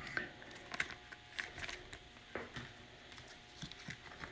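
Faint scattered rustles and light clicks of a trading card being handled and slid into a plastic sleeve and rigid plastic top loader.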